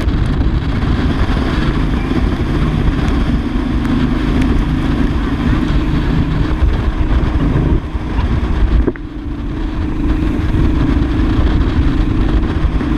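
Speedboat engine running hard at speed, with wind on the microphone and the rush of water and spray. The sound dips briefly about eight to nine seconds in.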